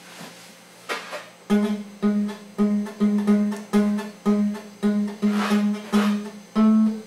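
Acoustic guitar strummed in a steady rhythm, about two strums a second, the same chord repeated. The strumming begins about a second and a half in, after a few faint knocks.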